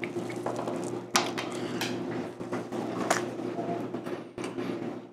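Gloved hands breaking apart and handling a cream-filled sandwich biscuit, giving a few faint crackles and clicks over a steady low hum.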